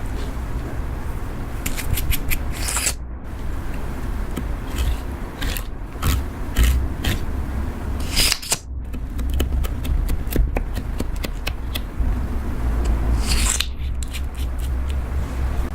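Butter slime being worked by hand: a run of small sticky clicks and crackles with scraping, a few louder crackly stretches now and then.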